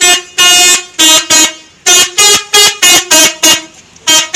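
Telolet horn, a multi-tone musical horn, sounding about ten short blasts in quick succession. The pitch steps between notes from blast to blast, playing a little tune.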